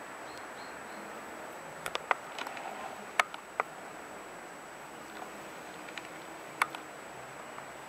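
Steady faint hiss with sharp clicks: a cluster about two to four seconds in, and a single loud one near the end.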